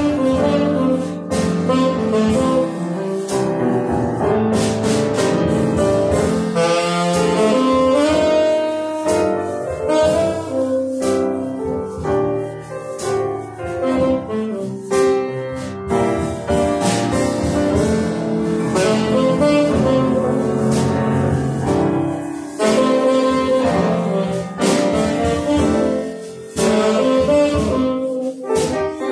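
Live jazz trio: tenor saxophone playing a slow ballad line over piano chords, with drums keeping time.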